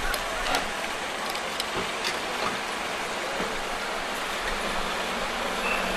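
Street ambience: a steady hiss of traffic and cars, with a few sharp knocks in the first two seconds and a thin high tone that starts near the end.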